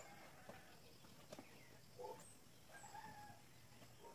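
Faint bird calls in the background over a quiet room: a few short clucking calls about two and three seconds in, and a few thin high chirps. There are also a couple of soft taps from a cardboard box being handled.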